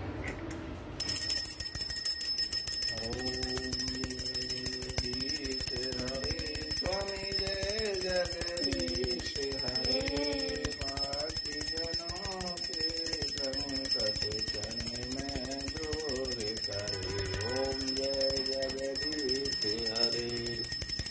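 Hindu devotional aarti song: a sung melody over continuous ringing bells, starting abruptly about a second in.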